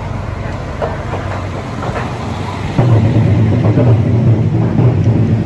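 Diesel railcar moving slowly alongside a station platform, its underfloor diesel engine running with a steady low hum. The engine gets markedly louder about three seconds in as the car comes close.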